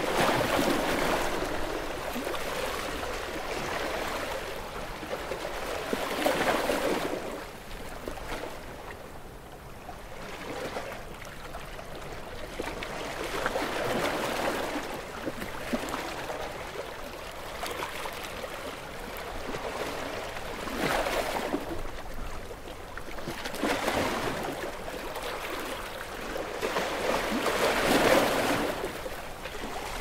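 Small ocean waves washing in and lapping, each one swelling and fading every few seconds, the loudest near the end.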